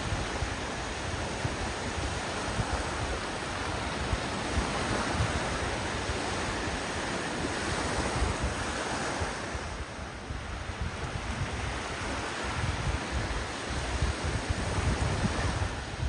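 Sea surf rushing steadily on the beach, with wind buffeting the microphone in gusts that grow stronger near the end.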